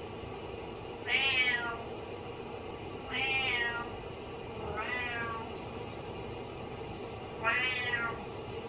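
Domestic cat meowing four times, about two seconds apart, each meow rising and then falling in pitch. The meows are sad, the cat calling for its owner, who is out of sight in the shower.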